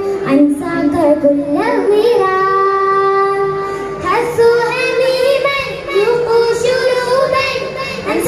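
A group of schoolchildren singing a song in unison through stage microphones, with long held notes that step up and down in pitch.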